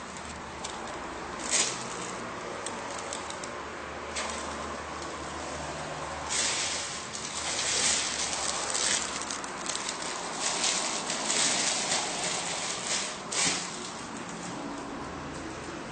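Paper wrapping rustling and crinkling as boots are lifted out of their box, with a few sharp crackles early on and denser crackling from about six seconds in that dies down near the end.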